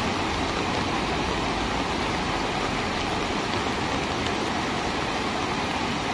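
Turbulent floodwater rushing down a street, a steady unbroken rush of noise.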